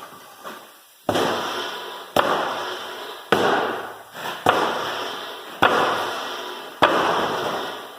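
A series of sharp knocks, evenly spaced about one a second, each ringing out and dying away before the next.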